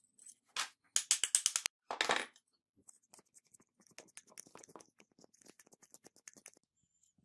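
Angle grinder armature and aluminium gear housing clinking as they are handled: a fast run of sharp metallic clicks about a second in, then a louder clack. After that come fainter scattered ticks and rattles as a steel rod is worked against the bevel gear.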